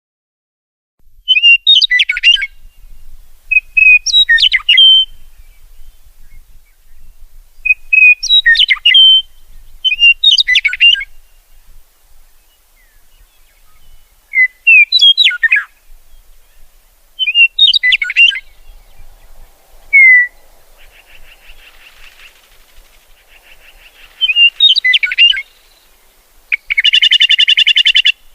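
Songbird singing short, quick phrases of chirps and whistled notes, repeated every two to three seconds, ending in a harsher buzzy call.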